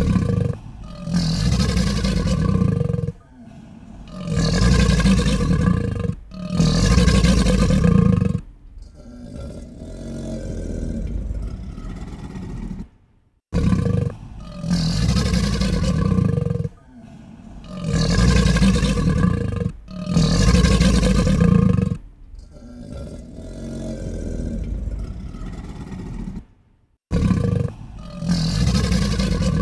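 Alligator growls: a series of deep, rumbling growls, each lasting a second or two, separated by quieter, lower stretches. The sequence of growls repeats about halfway through.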